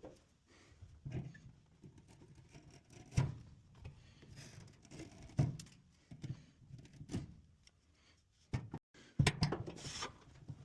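LG clothes dryer running, giving irregular low thumps about every one to two seconds with faint squeaks among them: the squeaking noise it is faulted for.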